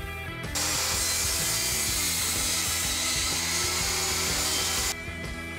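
Table saw ripping a wooden board: the spinning blade cutting through the wood makes a loud, steady hiss that starts about half a second in and cuts off abruptly near the end. Background music plays underneath.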